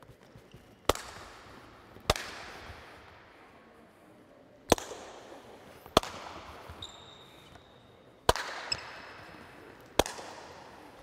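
Six loud, sharp ball impacts at irregular intervals, each ringing out with a long echo in a reverberant sports hall, with a couple of brief high squeaks between them.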